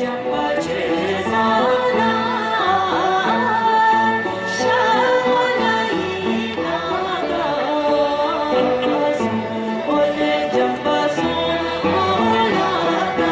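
Bhutanese folk dance song: voices singing a winding, ornamented melody over instrumental accompaniment.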